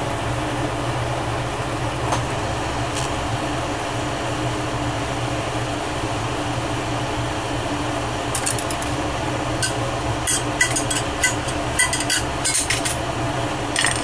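Glassblowing bench torch flame hissing steadily. From about eight seconds in comes a quick series of light clicks and clinks, like glass or metal tools knocking together.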